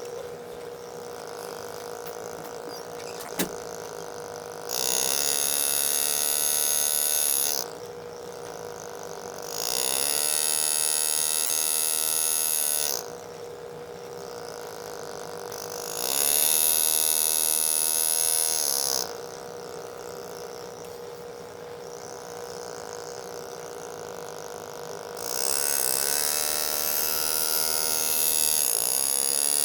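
Power engraving handpiece buzzing as it cuts into a steel shotgun receiver, running in several-second spells over a steady quieter hum, with one sharp click about three and a half seconds in.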